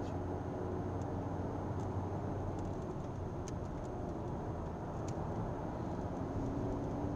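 A car heard from inside its cabin while being driven at about 70–90 km/h: a steady engine drone and tyre and road rumble, with a few faint clicks.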